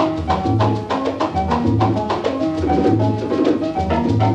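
Salsa music played loud over a dance sound system: drums and percussion over a bass figure that repeats about every three-quarters of a second, with repeated pitched notes above.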